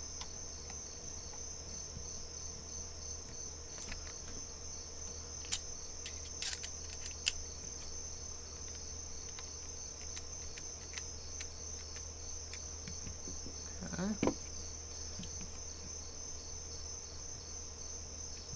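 Steady chorus of crickets, a high continuous trill with a fast pulse, over a low hum. A few sharp light clicks come between about 4 and 7 seconds in, from the headlamp's plastic parts being handled.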